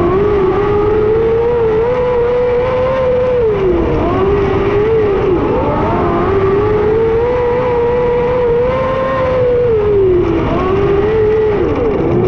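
Onboard sound of a 600cc micro sprint car's motorcycle engine racing at high revs. The revs hold high, drop twice (about four and ten seconds in) and climb again, over the rumble of the car on the dirt.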